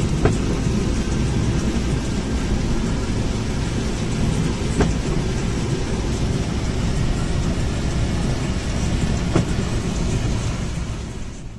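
Steady engine and road rumble heard inside the cab of a Suzuki Multicab driving in the rain, with rain noise over it. A faint tick comes about every four and a half seconds, and the sound fades out near the end.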